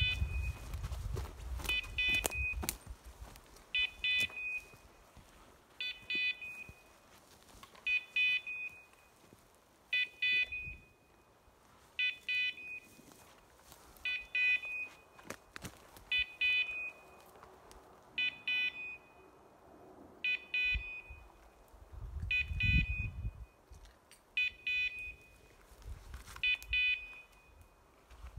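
Electronic beeper collar on a hunting dog, sounding a quick cluster of high beeps about every two seconds. Footsteps through undergrowth thump near the start and again about two-thirds of the way in.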